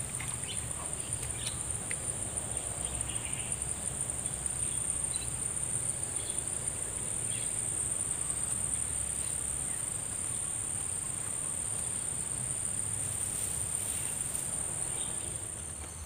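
Insects, crickets or cicadas, calling in a steady, high-pitched, unbroken trill.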